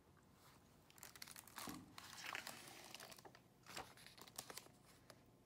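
Faint crinkling and rustling of a hardcover picture book being opened and its cover and pages handled, with a few soft clicks.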